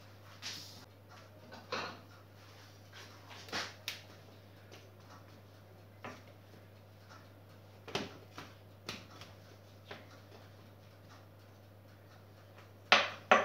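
Cut vegetable pieces being moved around in a metal tart tin, giving scattered light taps and rustles, with a steady low hum underneath. A sharper, louder clatter comes near the end.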